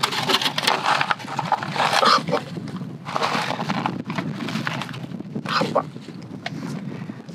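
A plastic salad bag crinkling and leaves rustling in irregular bursts as mixed salad greens are shaken out into stainless steel camp cups and pushed into place by hand.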